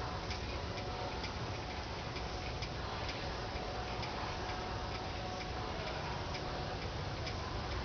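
Steady hiss of rain with faint ticking repeating through it.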